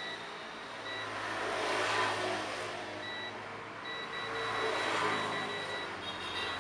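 Multimeter continuity beeper chirping in short, broken beeps as the probes touch a phone's circuit board, a quick run of beeps near the end. The beep signals a shorted line to ground on the dead phone's board. Under it runs a broad rushing background noise that swells twice.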